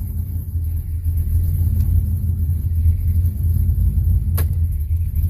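Ford Mustang's 4.6-litre V8 running at idle with a steady low rumble, just started on a freshly loaded tune and new O2 sensors. A single sharp click a little over four seconds in.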